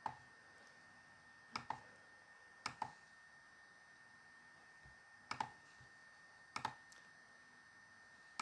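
Computer mouse clicking: sharp clicks, most of them in quick pairs, every second or two, over a faint steady high-pitched hum.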